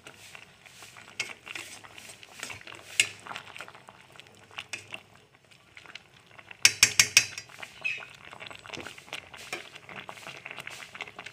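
Metal ladle scraping and knocking against a stainless steel pot while stirring fish and greens simmering in coconut milk. Scattered light clinks throughout, with a quick run of about five sharp knocks about seven seconds in.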